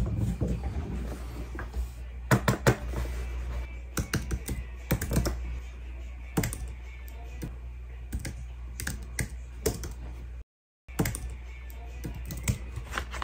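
Typing on a computer keyboard: irregular runs of keystroke clicks, cut by a brief total silence about ten seconds in.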